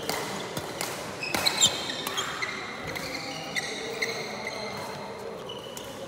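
Badminton rally: rackets striking the shuttlecock in sharp cracks, the loudest about one and a half seconds in, and shoes squeaking on the court floor.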